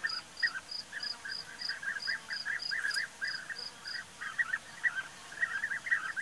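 European bee-eaters calling: many short chirps, often overlapping. Under them a faint, evenly spaced series of high ticks, about three a second, stops about four seconds in.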